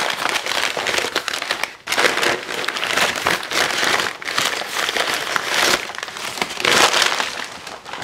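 Packing paper and bubble wrap crinkling and rustling as they are pulled off a small cast iron skillet, with short pauses about two seconds in and near six seconds.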